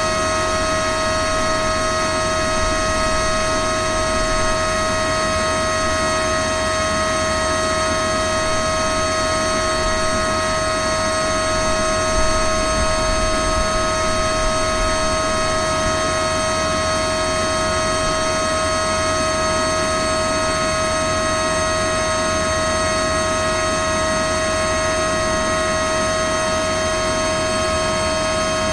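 Service fan running steadily: a constant pitched whine over a low rumble, unchanging throughout.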